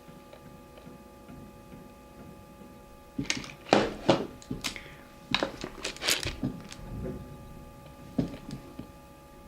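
A cluster of knocks and clicks from about three seconds in to about seven, with one more near the end, over a faint steady hum: makeup items being handled and set down.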